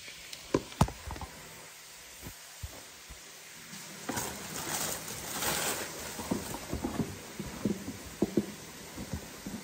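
A couple of sharp knocks as the phone is handled and set against the counter, then tissue paper rustling from about four seconds in, followed by light taps and clicks as a gift box is handled.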